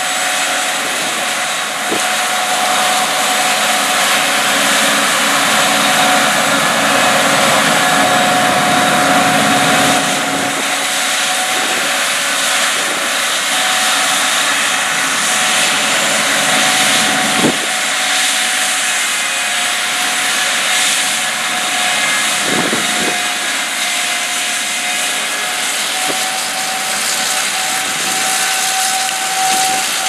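Gleaner S78 combine running under load while harvesting wheat: a steady mechanical rush with a high steady whine over it. One brief knock about 17 seconds in.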